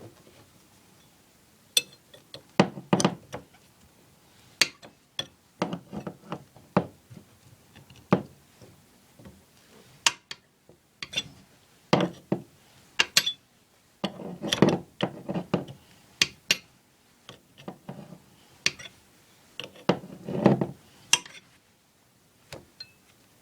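Irregular clanks, clicks and knocks of hand tools working on household plumbing pipes and fittings, coming in clusters every second or two.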